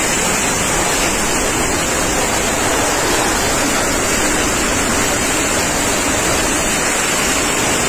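Violent inflow winds of an F4 tornado blowing in a loud, steady rush with no let-up.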